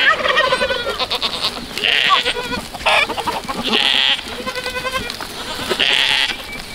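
Goats bleating, several wavering calls one after another.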